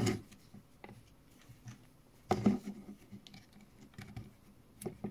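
Faint scratching and clicking of plastic as a programming cable's plug is worked into the tight side accessory jack of a Baofeng UV-28 handheld radio, with a louder clatter about halfway through and a couple of sharp clicks near the end.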